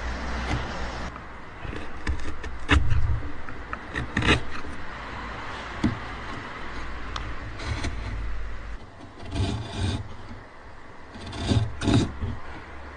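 Steel wood chisel pared by hand through dark hardwood end grain in a joint socket: a continuous scraping and shaving of the blade on wood, broken by several sharp clicks and knocks, the loudest about 3 and 4 seconds in and near the end.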